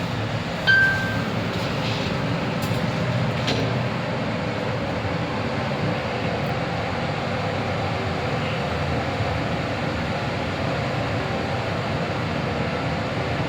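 Mitsubishi Electric lift car travelling down, a steady running rumble and hum heard inside the car. A single short beep sounds about a second in.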